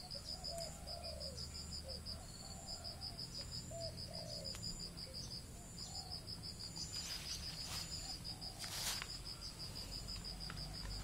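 Insect chirping in a fast, even pulsed trill that keeps going throughout, with a few short, low calls in the background during the first half. Two brief rustles come about seven and nine seconds in.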